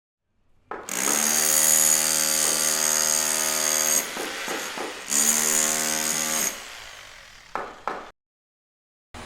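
Handheld power cutting tool running under load in two runs, about three seconds and then about a second and a half, with a steady motor whine and a hiss of cutting; it winds down after the second run, followed by two short knocks.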